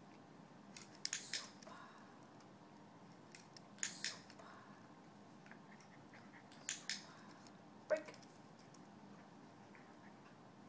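A few short sharp clicks, mostly in quick pairs, about four times over the stretch, with the loudest single click near the end.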